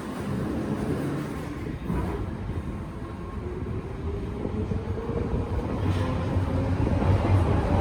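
London Underground Piccadilly line train running through the station without stopping: a steady rumble of wheels on rails with a motor whine that rises in pitch, and the rumble growing louder near the end.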